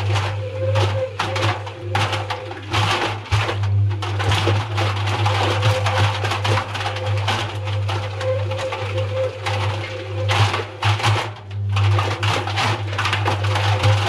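Front-loading washing machine drum turning with a steady motor hum and a faint steady whine, while air-filled balloons tumble inside it, rubbing and bumping against the drum and glass in irregular scrapes and knocks.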